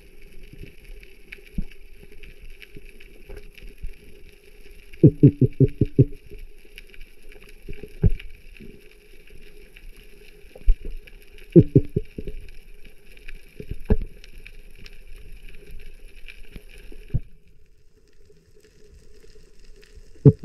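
Underwater sound picked up by a GoPro in its housing: a steady low hum with a faint fine crackle, broken by short runs of quick knocks about five seconds in, again around twelve seconds, and at the very end.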